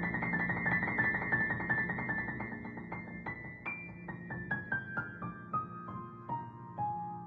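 Background piano music: quickly repeated high notes, then a run of single notes stepping down in pitch, about three a second.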